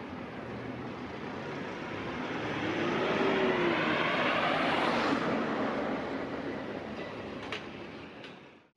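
A road vehicle passing by, its tyre and engine noise growing louder to a peak in the middle and then fading. Two short clicks come near the end, and the sound cuts off abruptly just before the end.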